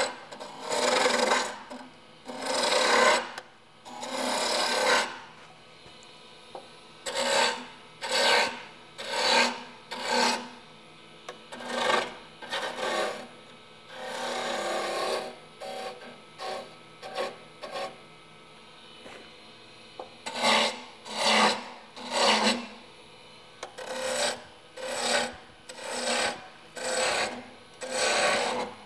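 Wood-turning gouge cutting a chair-leg spindle spinning on a lathe: a run of short scraping cuts, most under a second, as the gouge is swept back and forth along the wood, with a pause in the middle. A faint steady hum carries on between the cuts.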